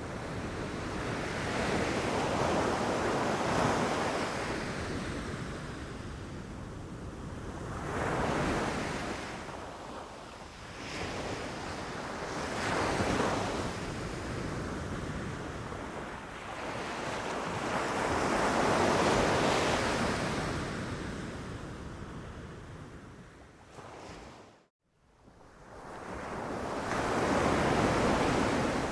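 Ocean waves breaking on a beach: surf that rises and falls in swells every four to six seconds. The sound cuts out completely for a fraction of a second about three-quarters of the way through.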